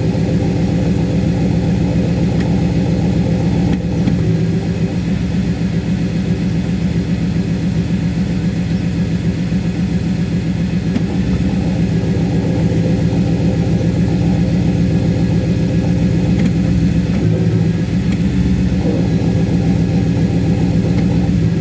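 Audi S4 B6's V8 engine running steadily with the cold Tiptronic automatic gearbox in gear, giving a steady low hum; the noise comes from the gearbox only while it is cold and is gone after a short drive.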